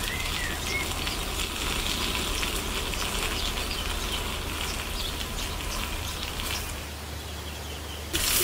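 Water spray showering elephants, a steady hiss, with birds chirping faintly in the background.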